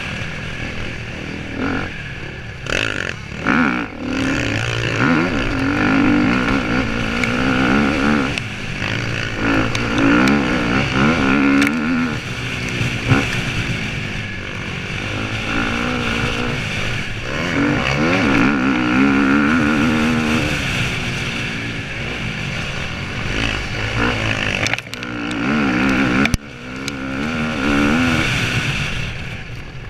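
Dirt bike engine heard close up from the rider's onboard camera, revving up and down again and again through acceleration, gear changes and easing off over a rough track. A steady wind rush runs under it, with a few sharp knocks from bumps.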